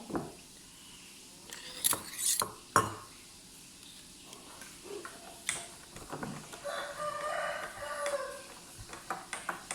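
A rooster crows once, a single drawn-out call of about a second and a half in the second half that drops in pitch at its end. A few sharp knocks come about two to three seconds in.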